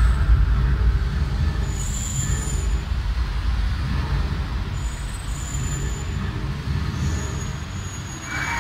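Deep, loud rumbling from an animatronic fire-and-smoke show as flame jets go off, with faint high hissing tones coming and going.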